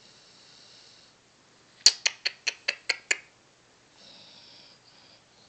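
A Cocker spaniel mix dog's soft breathing through the nose, broken in the middle by a quick run of about seven sharp clicks lasting a little over a second.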